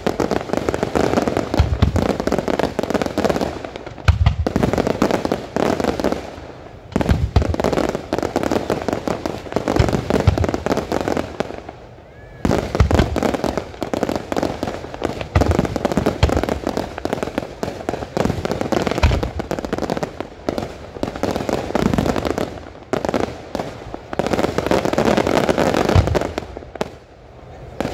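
Aerial fireworks display: a continuous barrage of rapid bangs and crackle, with heavy booms every few seconds and brief lulls about a quarter and halfway through.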